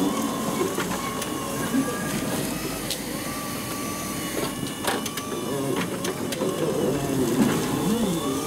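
STILL forklift driving with a loaded pallet on its forks: a steady mechanical whine with scattered knocks and rattles.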